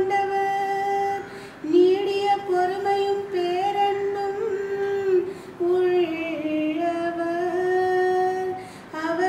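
A woman singing solo and unaccompanied in Tamil, chanting the verses of the responsorial psalm in long held notes, phrase by phrase with short breaths between.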